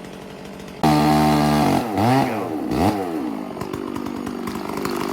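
Stihl chainsaw idling, then opened up suddenly to full throttle about a second in. The revs drop and climb back twice before it settles into a lower, steady running.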